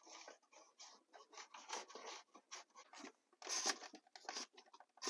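Insulated wires being pulled and fed through behind a car's dashboard: a run of short, irregular scratchy rustles and scrapes, the loudest about three and a half seconds in.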